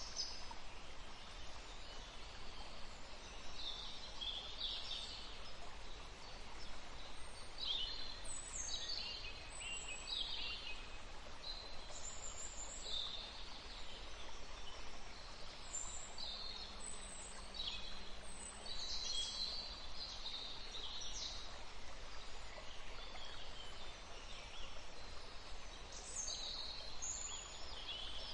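Forest ambience: many short, high-pitched bird calls and chirps, one after another, over a steady hiss of background noise.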